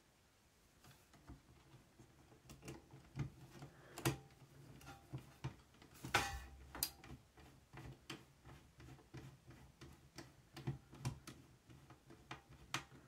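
Small precision screwdriver turning screws back into a cassette deck's mechanism: faint, irregular light clicks and ticks of the bit and screws on the metal frame, with a few sharper clicks.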